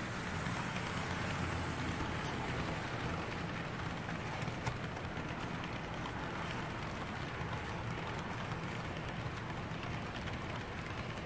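HO scale model freight train running on Kato Unitrack: a steady hum of the locomotive's motor and rolling wheels, with a few light clicks.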